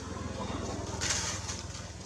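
Steady low hum with a brief rustle of dry leaves about a second in, footsteps in leaf litter.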